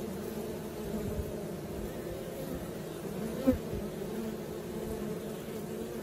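Western honeybees buzzing steadily at the hive entrance as foragers fly in and out, with one brief louder buzz about halfway through.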